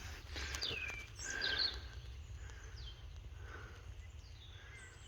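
Songbirds calling outdoors: several separate falling whistles and short chirps, the clearest about a second in, over a low steady rumble.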